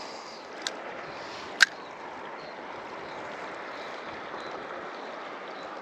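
River water flowing steadily, with two sharp clicks about a second apart near the start, the second one louder.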